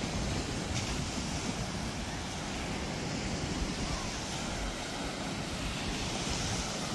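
Baltic Sea surf washing steadily onto a sandy beach, with some wind on the microphone.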